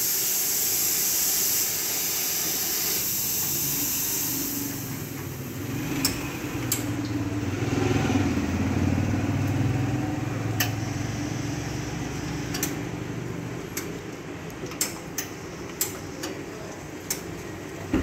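Expobar two-group espresso machine: the hot water outlet hisses for the first four seconds or so, then the pump runs with a low hum as water flows from both group heads. Sharp clicks come at irregular intervals through the second half.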